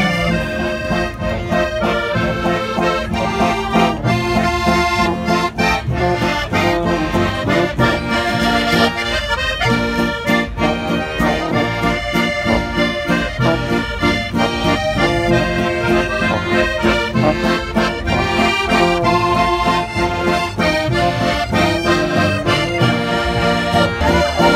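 Small folk band playing traditional music with a steady beat, a piano accordion leading over double bass, acoustic guitar and tuba.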